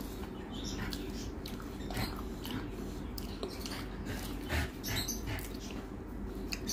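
Close-up eating by hand: irregular wet clicks and smacks of chewing and of fingers mixing rice with fried potato on a steel plate, over a steady low hum.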